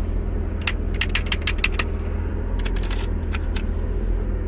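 Steady low rumble, as in a moving car, with two quick runs of sharp clicks and light rattles, about a second in and again about three seconds in.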